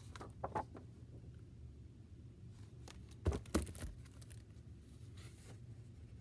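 A hardcover picture book being handled and its pages turned on a desk: a couple of soft paper sounds about half a second in, then a louder cluster of short knocks and paper sounds a little after three seconds. A low steady room hum runs underneath.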